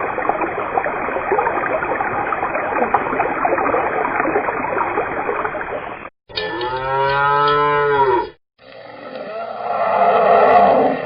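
Rushing river water for about six seconds, cut off suddenly, followed by a cow mooing twice: a short moo, a brief gap, then a longer moo that swells.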